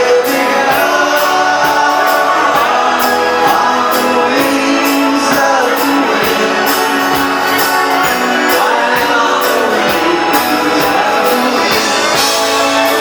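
A live band playing a song with a lead singer, drums keeping a steady beat under sustained instrument chords.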